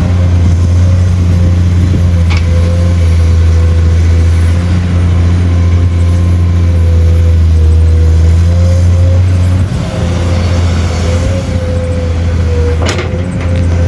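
Excavator's diesel engine running steadily at working speed, with a wavering whine over it. The engine note dips briefly about ten seconds in, and there are two sharp knocks, one early and one near the end.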